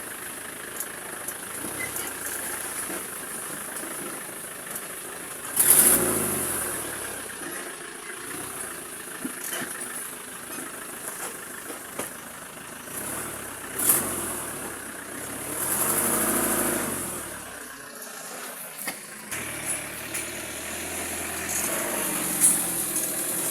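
A small engine running steadily, swelling louder twice with a shift in pitch, about six seconds in and again around sixteen seconds, under a constant high hiss.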